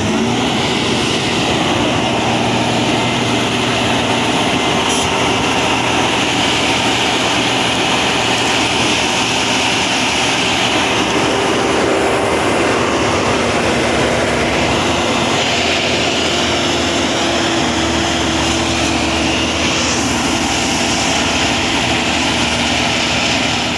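Vögele asphalt paver's diesel engine running steadily while the machine works, a loud continuous drone with a hiss on top.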